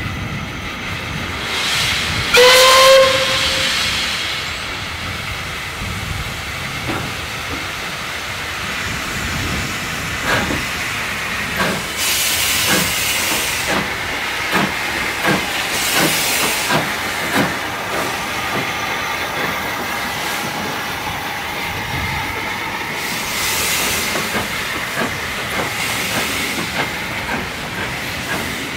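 Caledonian Railway 812 Class 0-6-0 steam locomotive No. 828 gives one short whistle about two seconds in, over a steady hiss of steam. About ten seconds in it starts away: its exhaust beats begin slow and come faster, with bursts of steam hiss from the open cylinder drain cocks.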